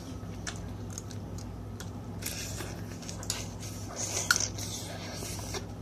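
Cooked crab being broken apart by hand, its shell cracking in small clicks and wet squishes as the meat is picked out, then chewed. The sharpest click comes a little after four seconds in, over a low steady hum.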